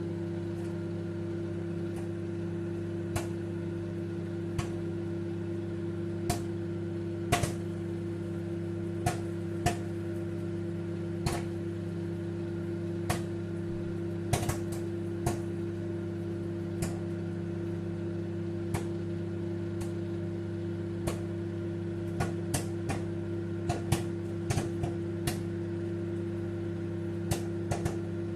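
Microwave oven running with a steady hum while popcorn kernels pop inside it, sparse single pops about one a second, coming more often near the end: the popping just getting under way.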